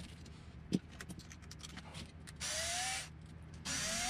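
Ryobi cordless screwdriver run in two short bursts, each about half a second, its motor whine rising as it spins up, backing screws out of the sway bar mounts. A few light clicks from handling plastic parts come before it.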